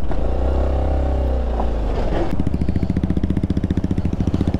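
Single-cylinder motorcycle engine running, a steady drone that turns into a rapid, even thumping about two seconds in.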